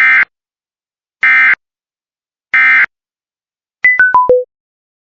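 Emergency Alert System end-of-message data: three short bursts of buzzy digital warbling about a second apart, followed by four quick electronic beeps stepping down in pitch.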